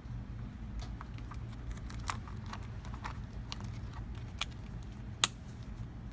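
Small hand tools clicking and tapping as a precision screwdriver set from a phone repair kit is handled: irregular light clicks about every half second, with one sharper click about five seconds in, over a steady low hum.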